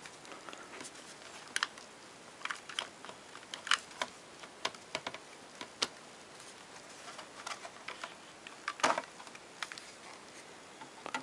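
Light plastic clicks and scrapes of a Milwaukee 18-volt battery pack being worked partly out of and back into its charger, a dozen or so scattered clicks with a louder knock about nine seconds in.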